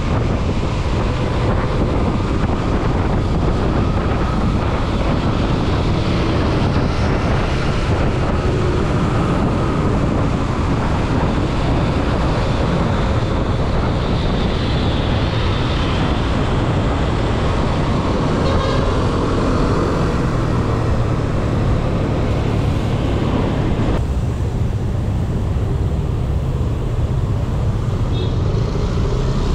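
Steady wind noise rushing over a GoPro microphone on a moving mountain bike. A low, steady engine hum from a motor vehicle joins about twenty seconds in.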